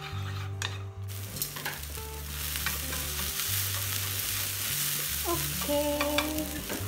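Diced onions sizzling as they sauté in a frying pan, stirred with wooden cooking chopsticks that give a few light clicks against the pan. The sizzle sets in about a second in and then holds steady.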